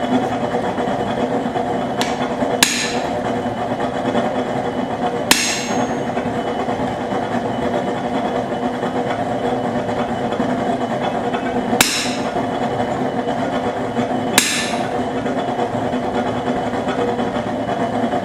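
About five slow, widely spaced hammer blows on hot half-inch rebar on an anvil, each ringing briefly. They sound over the steady running of a propane forge burner.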